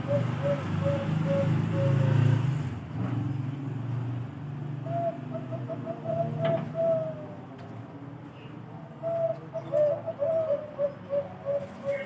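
Zebra dove (Bangkok-strain perkutut) cooing in runs of short, quick coo notes. One run tails off in the first couple of seconds, another phrase comes about five to seven seconds in, and a longer run starts about nine seconds in. A low rumble sits under the first few seconds.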